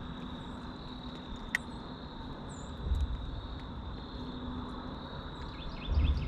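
A steady, high-pitched insect chorus of crickets chirping, with a run of quick repeated chirps coming in near the end. Two low thumps sound about three and six seconds in.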